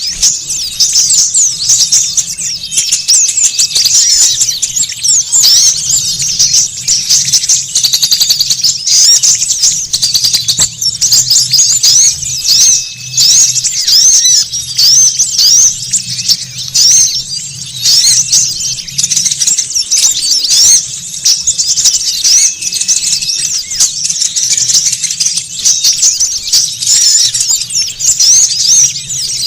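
Dense, noisy chorus of many small songbirds, with rapid, high, overlapping chirps and twitters and no break. It is a bird-luring (pikat) recording of small birds, played to draw wild small birds in.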